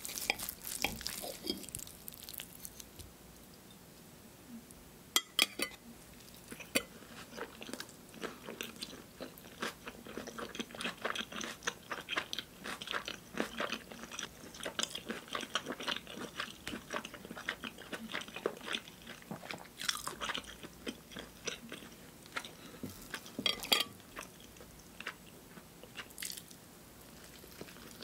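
Close-miked chewing and crunching of a thick pizza slice topped with bacon and fried hash browns, in dense irregular bites. At the start comes the scrape of a knife and fork cutting through the slice. About five and twenty-four seconds in there are sharp clinks of metal cutlery on the ceramic plate.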